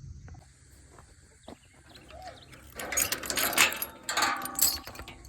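A burst of dense mechanical rattling and clattering, about two seconds long, starting about three seconds in after a quiet stretch.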